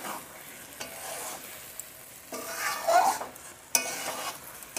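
Metal spatula stirring and scraping roasted stuffed brinjals through sizzling masala in a metal wok. The scrapes are loudest about three seconds in, and a sharp clank of the spatula against the pan follows soon after.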